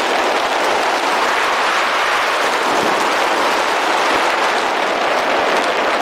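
Steady rush of air over a jumper-worn camera's microphone during a parachute descent under an open canopy, with no change in level.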